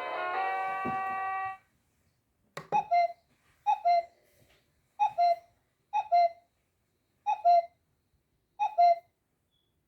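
Swann wireless doorbell chime unit playing its chime tunes: the end of a many-note melody, then after a pause and a click, a short two-note falling chime repeated six times about a second apart.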